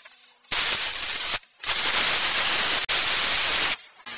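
Handheld plasma cutter cutting through a metal motorcycle rack. It gives a loud, even hiss that starts and stops in bursts as the torch is triggered, with one long cut in the middle.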